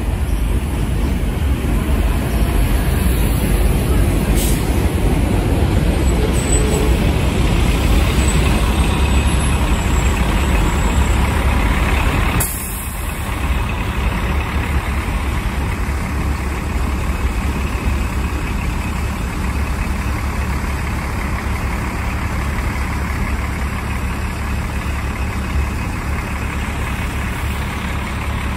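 MCI D4500CL coach bus's diesel engine running close by as a steady low rumble. There are short air-brake hisses about four seconds in and again about twelve seconds in, and after the second the sound drops a little.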